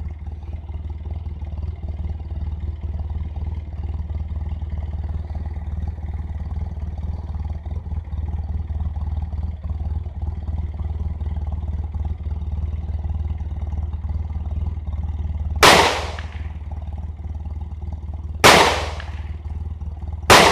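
Three .45 pistol shots near the end, the second about three seconds after the first and the third about two seconds later, each with a short echoing tail, over a steady low rumble.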